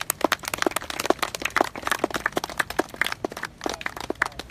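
A small crowd clapping: scattered, uneven hand claps.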